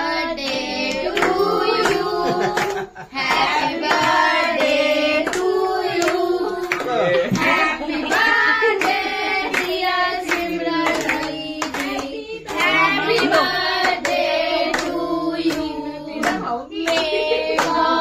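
A small group of people singing a birthday song together, with hand claps keeping a steady beat.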